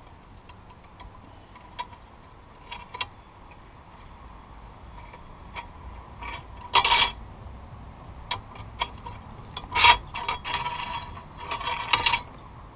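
Scattered metallic clicks and taps, with a few short scraping rasps about 7 and 10 seconds in and near the end, from hand work pulling the hydraulic linkage off a Farmall Cub tractor.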